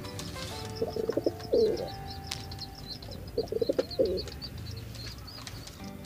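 Domestic pigeons cooing: two rolling, throaty coos about two and a half seconds apart, over a constant high-pitched chirping.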